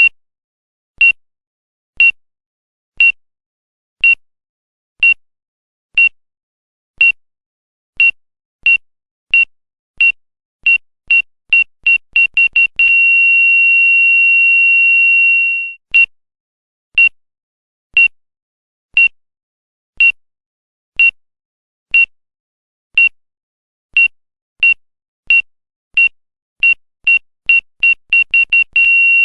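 Electrocardiogram heart-monitor sound effect: a high single-pitch beep about once a second that speeds up into rapid beeps and then becomes a continuous flatline tone, the monitor's sign of the heart stopping. The tone cuts off after about three seconds, the steady beeping returns, speeds up again and goes into a second flatline near the end.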